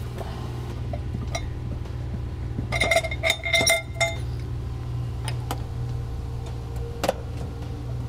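Metal clinks and light knocks as the spare tire's tools and hold-down are handled in a car trunk, with a ringing cluster of clinks about three to four seconds in. A steady low hum runs underneath.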